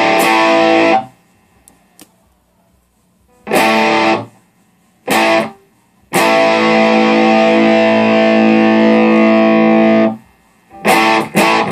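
Electric guitar played through a DIY overdrive circuit of three cascaded BS170 MOSFETs with its gain turned down a little: distorted chords with pauses between, a few short ones and one held for about four seconds.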